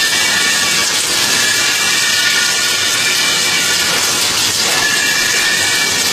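Kurkure snack processing line machinery running, a steady loud hiss with faint high whining tones.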